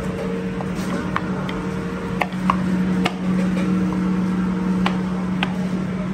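A knife chopping lemons on a plastic cutting board: irregular sharp taps as the blade hits the board, about a dozen, over a steady low machine hum.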